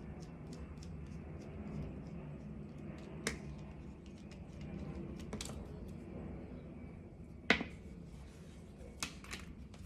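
A few sharp clicks and taps from handling embroidery supplies, the loudest about seven and a half seconds in and two close together near the end, over a low steady background hum.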